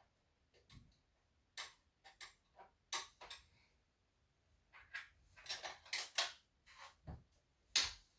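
Irregular light clicks and taps, a couple of them with a dull thump beneath, the sharpest click near the end.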